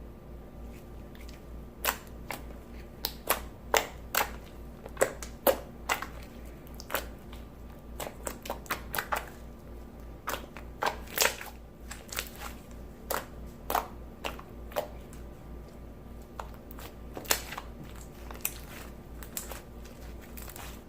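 Clear jiggly slime made from clear glue, borax activator and water being squished and squeezed by hand, giving many irregular sharp pops and clicks.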